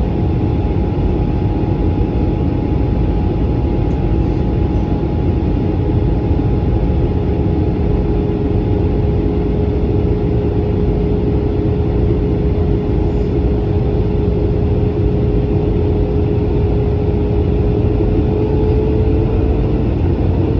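Airbus A320 cabin noise in flight: a loud, steady rush of airflow and engine drone. A steady tone comes in about six seconds in and rises slightly in pitch near the end.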